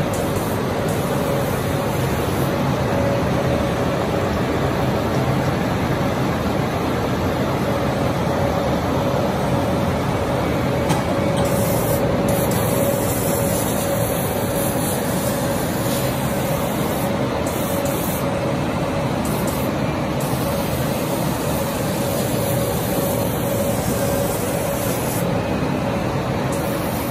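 Y1610 CO2 laser fabric-cutting machine running while it cuts, a steady rushing machine noise with a constant mid-pitched tone through it.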